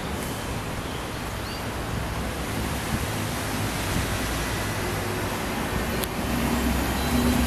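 Steady low engine hum under a hiss of outdoor and wind noise, a little louder near the end.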